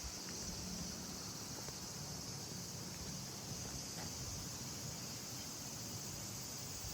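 Outdoor insect chorus: a steady, unbroken high shrill of crickets or cicadas, with a low steady rumble underneath and a few faint ticks.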